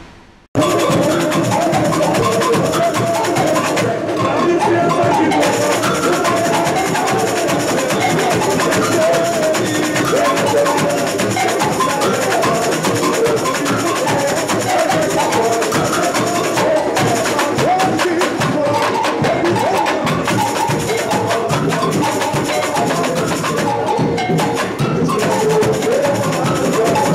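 Samba school bateria playing a samba rhythm: a dense mass of drums and hand percussion that starts about half a second in and keeps going without a break.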